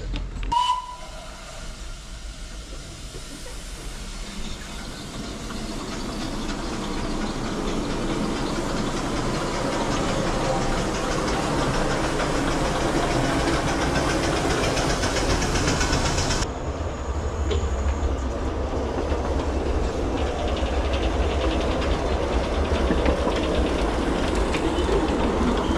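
Miniature railway train running along the track with a clickety-clack, growing louder over the first several seconds as it nears and then running steadily. A brief high squeak sounds just after the start.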